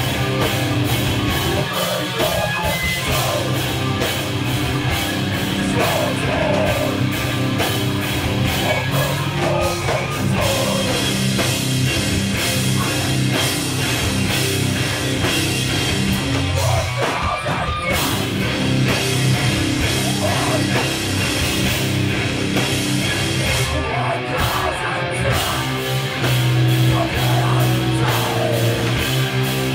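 Live heavy rock band playing loud: distorted electric guitars and bass over a fast, steady drum-kit beat, with vocals coming in at times.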